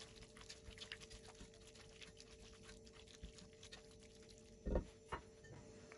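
Faint sizzling and fine crackling of diced chicken, mushrooms and tomato paste cooking in a nonstick pot as they are stirred with a silicone spatula, with two soft knocks near the end.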